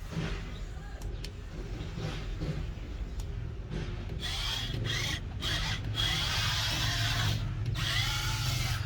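Construction machinery running with a steady low rumble, joined about four seconds in by a loud, harsh grating noise that comes and goes, rising and falling in pitch.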